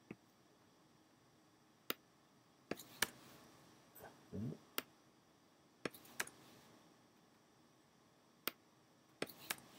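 Computer mouse and keyboard clicks: about ten sharp, faint clicks at irregular intervals.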